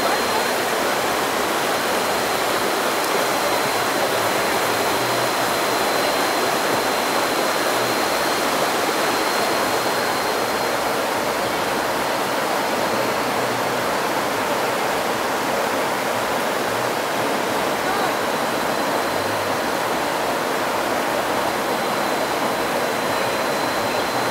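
Steady rush of flowing river water, with a thin, steady high whine above it.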